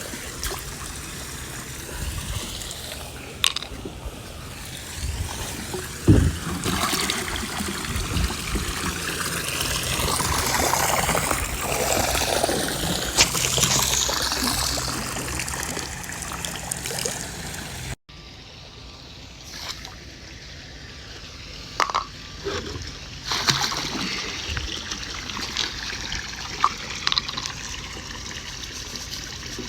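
Liquid pool chemicals, liquid chlorine among them, poured from a jug into swimming-pool water, trickling and splashing, growing louder for several seconds in the middle before an abrupt change in the sound about eighteen seconds in; a few short knocks.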